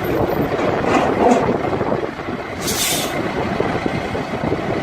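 Heavy truck running with a dense rumble, and a short sharp hiss of air about two and a half seconds in.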